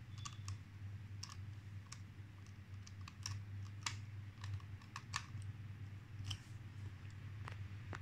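Small screwdriver turning out the M.2 SSD retaining screw on a laptop motherboard: scattered small, irregular clicks and ticks of the metal tip and screw, over a steady low hum.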